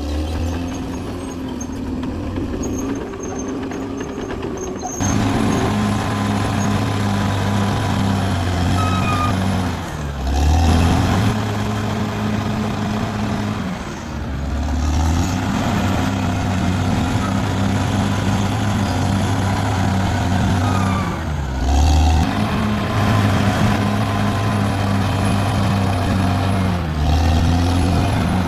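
Caterpillar D6R XL bulldozer's diesel engine running under load. Its pitch dips and recovers several times as the machine works.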